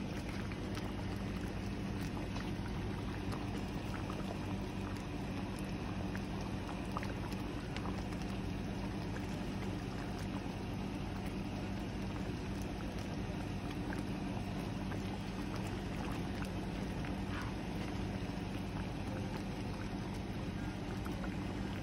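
Pork chops simmering in onion gravy in a skillet, under a steady low hum and hiss, with a few faint clicks of tongs against the pan.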